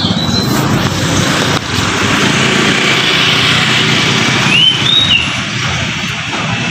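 Street traffic: cars and motorcycles running past with a steady engine rumble and tyre noise, with a short high chirp about two-thirds of the way in.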